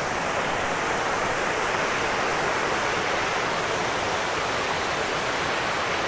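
Small waterfall cascading over rock ledges into a stream: a steady rush of water.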